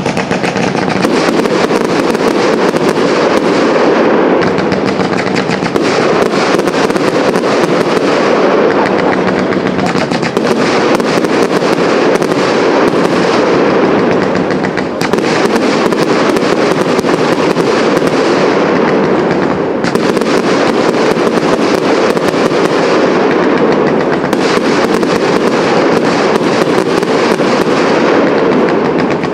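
Fireworks display going off: a dense, continuous crackle of many small bangs with no let-up.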